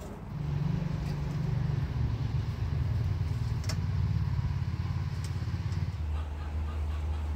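An engine running steadily with a low hum. Its note drops lower about six seconds in, and a few sharp clicks sound over it.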